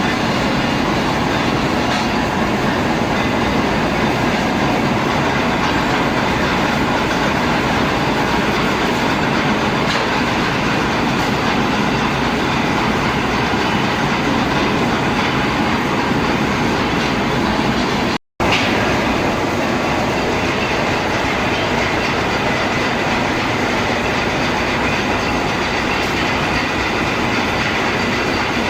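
Machine tool running steadily while cutting a metal shaft, a continuous dense mechanical noise with a low rumble. It drops out for an instant about two-thirds of the way through, then carries on unchanged.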